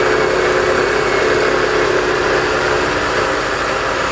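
Mini combine rice mill hulling paddy, driven by its 3 hp electric motor, running steadily and loudly as a mechanical hum with an even rushing noise over it.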